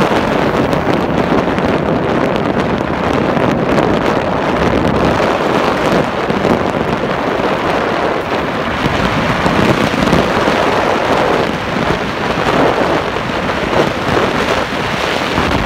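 Wind buffeting a phone's microphone held out of a moving car's open window, over tyre and road noise: a loud, steady rush.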